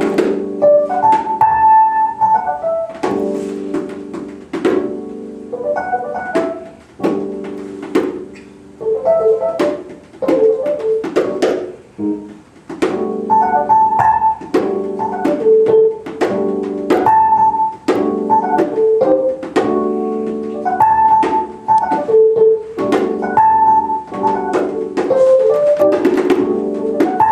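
Live jazz played on a Roland electric keyboard and a drum kit: the keyboard plays repeated chords in short phrases with a higher melody line over them, while the drums and cymbals strike throughout.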